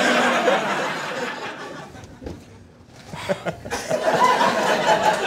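Studio audience laughing: a swell of laughter that dies away about two seconds in, then rises again near the end.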